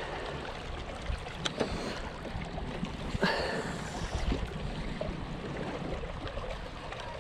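Water lapping at a rocky shoreline over a steady low rumble, with a short rushing splash-like noise about three seconds in.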